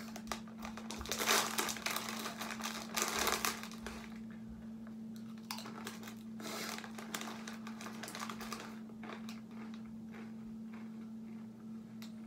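Foil snack-chip bag crinkling in the hands as it is handled and reached into, in irregular bursts that are loudest in the first few seconds, with smaller rustles later.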